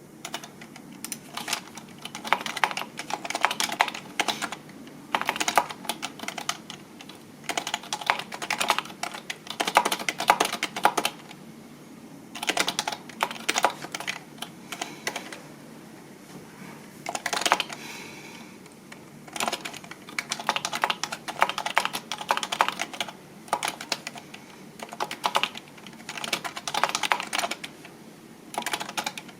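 Typing on a computer keyboard: rapid key clicks in runs of a few seconds, broken by short pauses.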